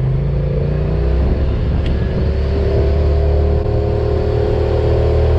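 Polaris RZR Turbo side-by-side's turbocharged twin-cylinder engine running under way, its pitch slowly rising as it gathers speed from about a second in.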